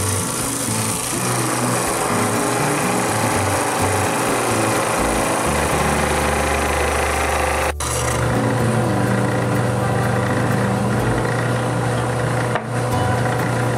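Faceting machine's electric lap motor running with a steady hum while a gemstone is ground against the wet lap. The sound drops out briefly twice.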